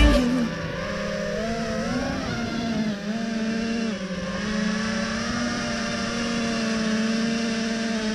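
FPV quadcopter's electric motors and propellers whining, the pitch rising and falling with the throttle and dipping briefly about three and four seconds in.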